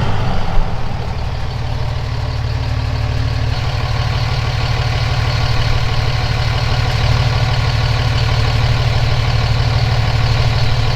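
An engine idling steadily with an even low rumble, and a single sharp knock about half a second in.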